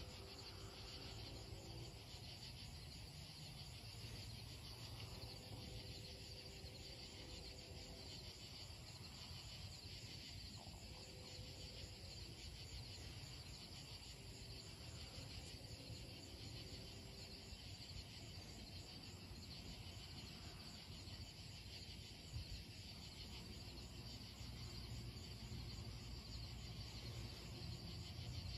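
Crickets and other night insects chirping steadily. A faint, distant locomotive horn chord sounds several times, and a low rumble builds near the end as the train approaches.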